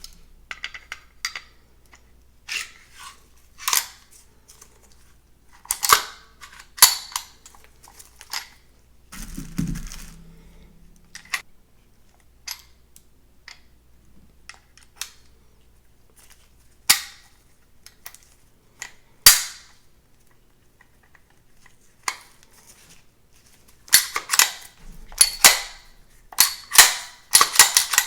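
Sharp metallic clicks and clacks of CZ Shadow 2 pistol parts being handled and fitted together, scattered at first, then coming thick and fast near the end.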